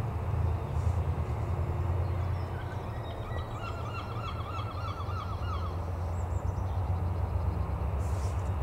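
Low steady rumble of a diesel locomotive approaching from a distance. In the middle a bird sings a quick run of repeated chirps for about two seconds.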